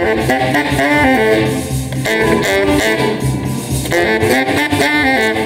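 Music: saxophone playing a moving melodic line over a steady backing beat.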